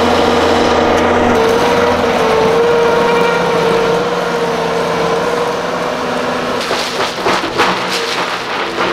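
An engine or motor running steadily at a constant pitch, with a slight wobble in its pitch about two seconds in. From about six and a half seconds in, several sharp knocks or clatters sound over it.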